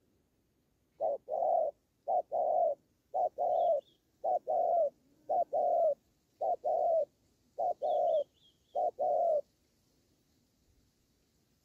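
Spotted dove cooing: eight two-part coos at about one a second, each a short note followed by a longer one. Two faint high chirps from a small bird come through behind it.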